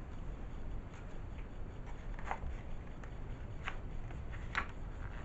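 Pages of a picture book being handled and turned: soft paper rustling with three short, crisp rustles, the loudest near the end.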